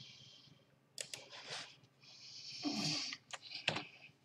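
Computer keyboard keys clicking a few separate times as a word is typed, about a second in and again near the end. Between them come two breathy hisses close to the microphone.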